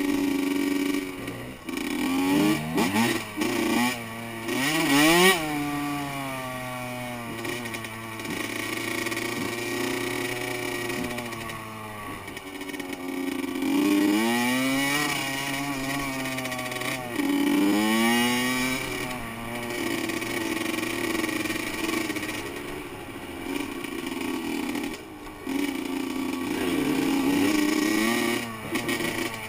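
Honda CR85 two-stroke dirt bike engine under the rider, revving hard and easing off, its pitch climbing in repeated sweeps as it accelerates through the gears, strongest about two to five seconds in and again around the middle.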